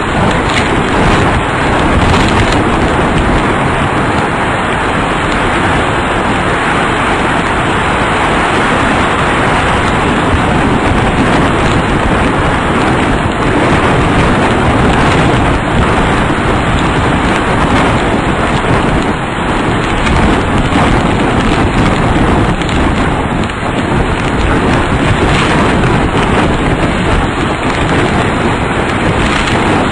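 Loud, steady roar of storm wind and heavy rain, with no let-up.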